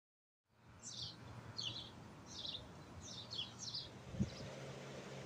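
A small bird chirping: six or seven short, falling chirps about half a second apart, over a steady low hum. A single low thump about four seconds in.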